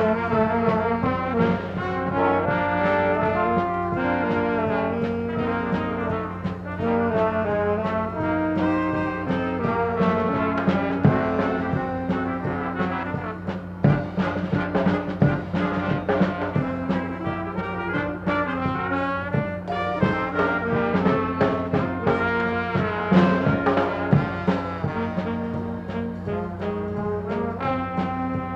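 Brass band music, trombones and trumpets playing a melody with frequent short accented hits, over a steady low hum.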